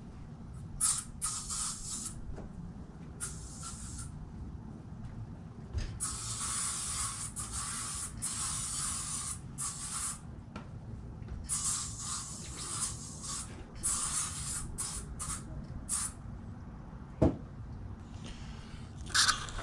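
Repeated bursts of hissing spray, some under a second long and one about four seconds long, starting and stopping abruptly. A single sharp knock comes near the end.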